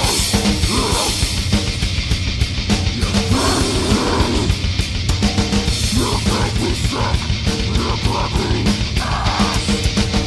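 Death/grind band recording from a 1994 demo: fast, dense drumming under heavily distorted guitars.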